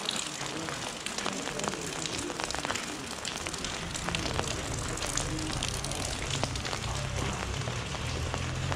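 Light rain pattering on an umbrella and the wet street, a steady hiss scattered with many small sharp drop ticks. A low steady hum comes in over the last few seconds.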